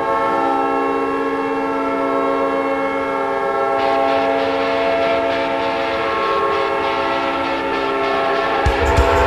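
Winnipeg Jets arena goal horn blowing one long, steady chord. About four seconds in, a noisy layer like a cheering crowd joins it, and near the end a low beat comes in under the horn.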